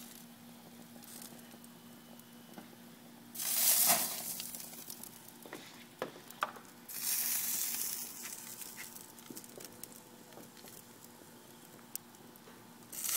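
Whole oiled trout sizzling on a hot barbecue grill grate. Loud bursts of sizzle come about three seconds in and again near seven seconds, each fading over a second or two, with small crackles and a faint steady hum between them.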